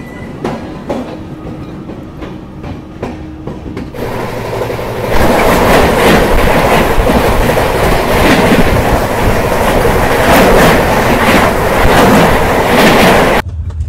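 Moving passenger express train: wheels clicking over the rail joints, then from about four seconds in a much louder rushing rattle of the train running at speed, which cuts off suddenly near the end.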